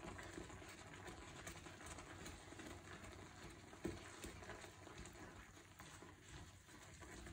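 Faint bubbling and spluttering of semolina cooking in boiling water in a frying pan as it is stirred with a silicone spatula, with one soft knock about four seconds in.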